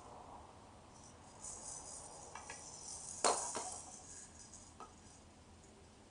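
Small plastic maracas shaken in short spurts, giving a dry rattle, with one sharp knock a little over three seconds in, the loudest moment.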